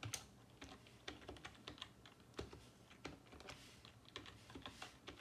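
Typing on a computer keyboard: a faint string of quick, unevenly spaced key clicks as a short phrase is typed out.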